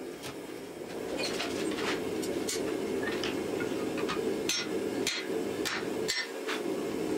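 Hand hammer striking a red-hot steel axe head on an anvil, a run of sharp metallic blows about one to two a second that begins about a second in, over a steady rushing noise.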